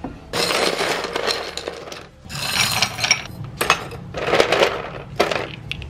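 Ice cubes clattering and clinking as they are scooped and stirred in a freezer's ice bin, in several spells of rattling.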